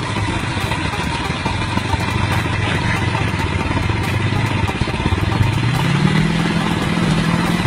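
Sport motorcycle engine running at low revs, then revving up sharply about five seconds in and holding the higher pitch.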